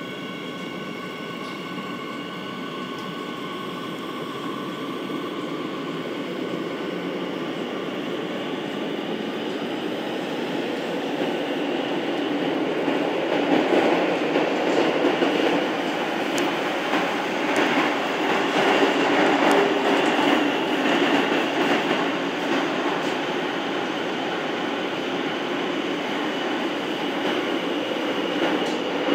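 Madrid Metro Line 12 train heard from on board as it pulls away. A steady whine of several tones at first fades as the rumble of wheels on rail builds over about twelve seconds, louder once in the tunnel and with light clicks, then settles to a steady run.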